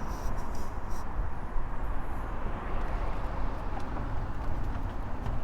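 Steady outdoor background rumble, with a few light clicks in the first second.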